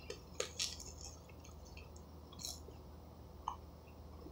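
A person biting into and chewing a large burger: faint, scattered wet mouth clicks and squishes.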